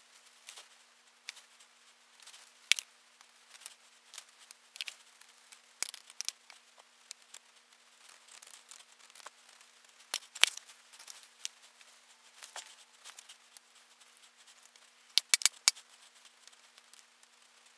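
Foundry moulding sand being handled and packed into a sand-casting flask: scattered gritty crunches, scrapes and sharp clicks, with a quick cluster of louder clicks near the end.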